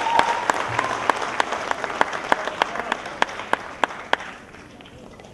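Audience applauding, with one nearby clapper standing out at about three sharp claps a second. The applause dies away after about four seconds.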